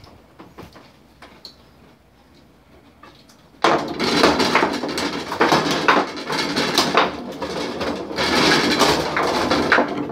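Foosball being played: a few faint clicks, then about three and a half seconds in a sudden, loud, fast clatter of plastic players striking the ball and rods knocking against the wooden table.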